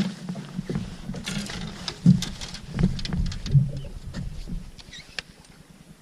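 Irregular knocks, thumps and clicks of handling aboard a bass boat, the heaviest thump about two seconds in, over a low rumble.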